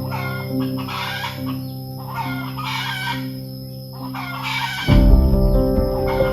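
Free-range chickens calling repeatedly, including a rooster, over background music with held notes. The music becomes louder and deeper about five seconds in.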